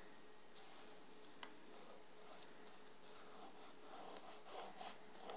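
Faint rubbing and scratching of hands on a sheet of paper, getting busier after about three seconds.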